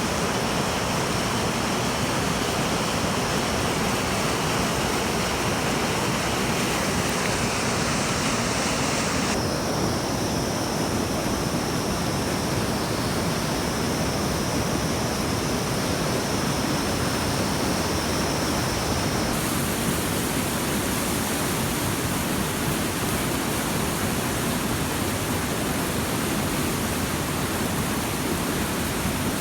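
Steady rushing noise whose tone changes abruptly twice, about nine and nineteen seconds in.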